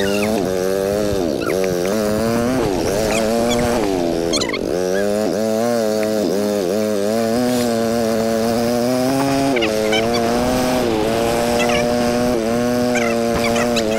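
A small two-wheeler's engine running under load, its pitch dipping and climbing back again and again as it revs up and down.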